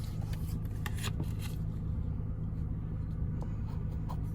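A scratch-off lottery ticket being scratched: short scraping strokes in the first second and a half, then fewer and fainter ones, over a steady low hum.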